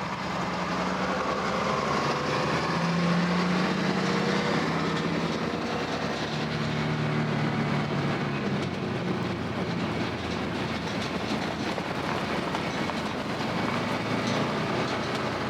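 A heavy vehicle running steadily, with a low engine hum over a constant rattling noise; the hum weakens after about nine seconds.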